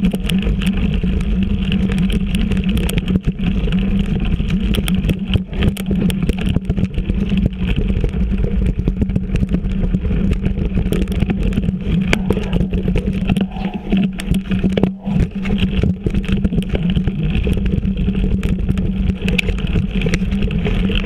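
Mountain bike rolling over a leaf-covered dirt trail, heard through a bike-mounted action camera: a steady loud rumble and rush with frequent knocks and rattles as the bike jolts over bumps.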